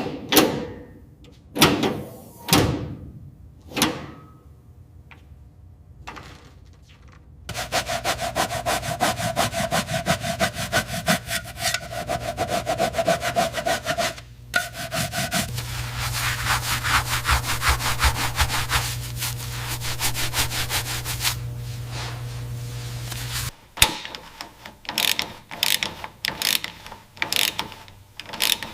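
Restoration sanding, with rapid rhythmic rubbing strokes and a steady hum under them in the middle stretch. A few sharp knocks come in the first seconds, and quick clicks come near the end.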